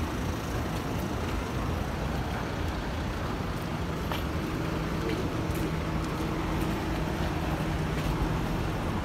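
Street traffic noise, steady, with a low hum of a couple of steady tones coming in about three and a half seconds in.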